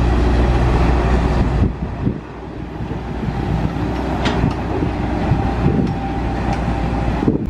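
Diesel engine of a loaded dump truck running close by, a heavy low rumble that drops off abruptly after about a second and a half, leaving lighter, uneven vehicle noise as the truck moves away.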